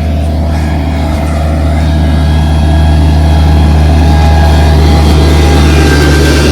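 Diesel engine of a mini skid steer running steadily with a deep, even hum, growing louder over the first couple of seconds and then holding steady.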